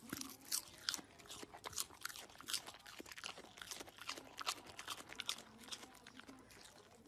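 A Samoyed chewing crunchy food, a quick irregular run of crisp crunches that thins out near the end.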